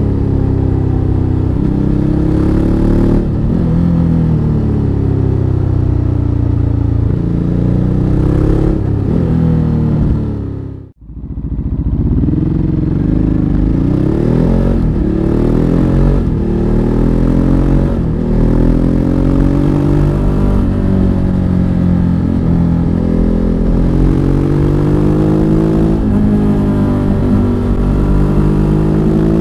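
Ducati Hypermotard 939's L-twin engine heard from the rider's seat while riding. The engine note rises and falls over and over with throttle and gear changes. The sound drops away sharply for a moment about eleven seconds in, then comes back.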